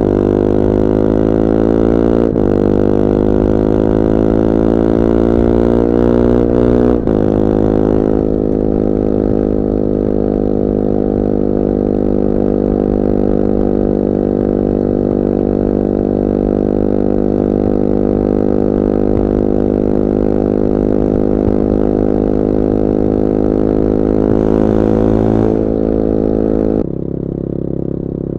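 2021 Bullit Hero 250's CF Moto-built 250cc four-stroke motorcycle engine under way, its note rising as it accelerates and dipping at gear changes about two and seven seconds in. It then holds a steady note at cruising speed, until near the end it suddenly drops to a lower, quieter note.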